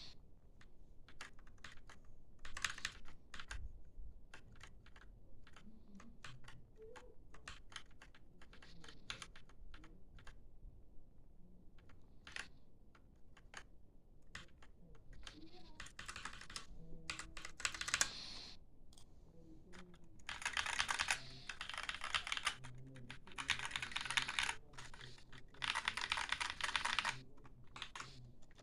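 Typing on an AUKEY mechanical keyboard with red linear switches: scattered single keystrokes at first, then fast runs of rapid key presses in the second half.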